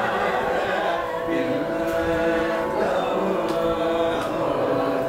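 Several voices singing a Carnatic classical song together, unaccompanied, with held and gliding notes.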